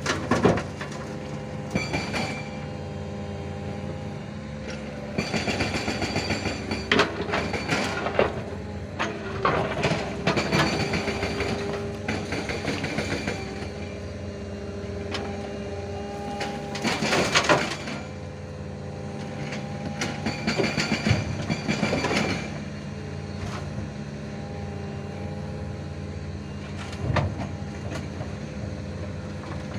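Mini excavator's diesel engine running steadily under load while it climbs onto a truck bed, with repeated loud metallic clanks and scrapes from its tracks and steel parts, the loudest about two-thirds of the way through.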